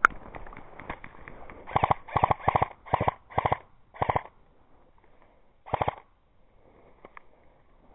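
Airsoft gun fired in short full-auto bursts: six quick bursts in about two and a half seconds, then one more near six seconds, each a rapid run of shots. A sharp click comes right at the start.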